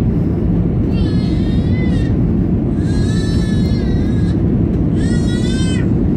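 Steady rumble of an Airbus A320's engines and slipstream heard inside the cabin on short final approach. Three short, high-pitched wavering cries rise above it, about a second in, at about three seconds, and near the end.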